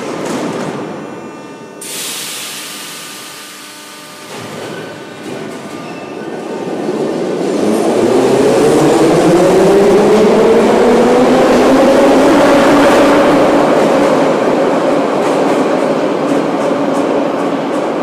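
Moscow Metro train starting off from the platform: a sudden hiss about two seconds in, then the rumble of the train and a motor whine that rises in pitch as it gathers speed. It is loud and steady through the second half.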